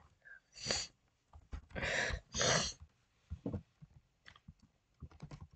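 Breathy sounds from a person close to the microphone, two of them back to back about two seconds in, followed by a scatter of light clicks.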